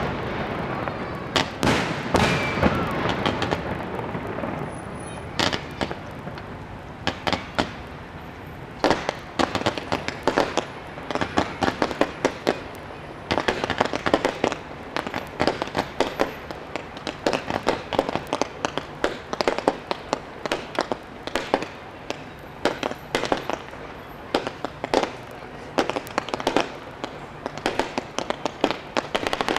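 Professional fireworks display: shells and comets launching and bursting in an irregular string of sharp bangs, a few at first, then coming thick and fast from about nine seconds in.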